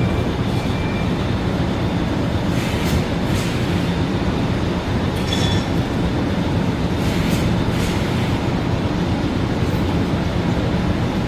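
Automatic shrink-wrapping machine for produce running, a steady mechanical rumble with short sharp sounds now and then.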